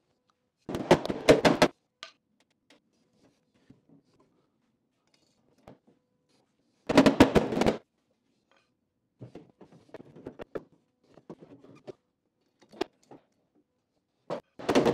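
Hydraulic body-repair ram pushing out a dented MGA rear panel, its pump worked in three short bursts of rapid clattering clicks, with lighter scattered clicks between them as the metal is pushed.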